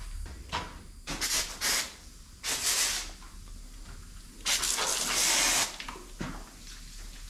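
Aerosol wasp spray can hissing in bursts as the wasp nests are sprayed: a few short squirts, then a longer one of about a second.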